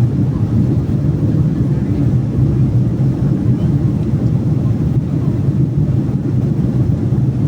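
Steady low rumble of a jet airliner in flight, heard inside the passenger cabin.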